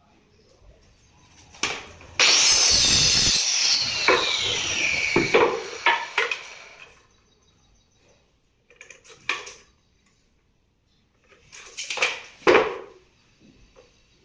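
A handheld electric power tool's motor runs loudly for about three seconds, then spins down with a falling whine after it is switched off. Short knocks and taps of tools on wood follow twice near the end.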